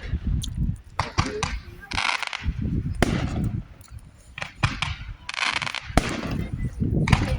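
Fireworks going off: several sharp bangs at irregular intervals, with a couple of short bursts of crackling noise between them.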